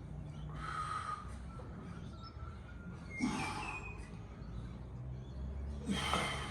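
A person breathing hard, with three short forceful breaths about a second, three seconds and six seconds in, over a low steady hum.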